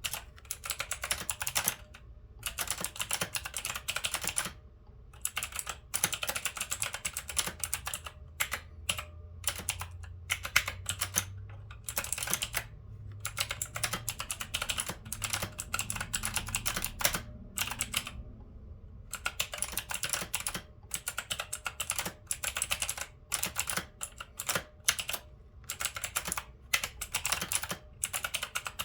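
Typing on an Onn mechanical keyboard: rapid runs of key clicks in bursts, with brief pauses between them.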